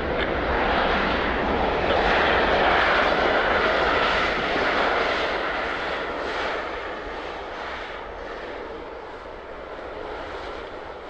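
Airliner engines passing by, loudest about two to four seconds in, then fading away.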